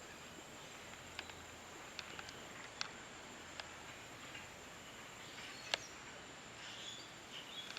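Quiet swamp ambience: a faint steady hiss with a handful of short, light clicks scattered through it.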